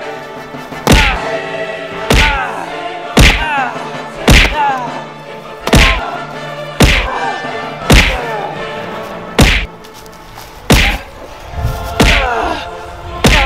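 A metal bar whacking a small piñata on the grass: about eleven hard blows, roughly one a second, over background music.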